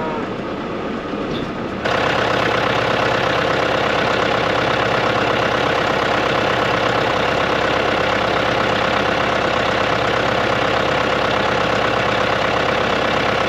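Tractor engine running steadily under load while hay bales are fed out. It jumps abruptly louder about two seconds in and holds an even pitch.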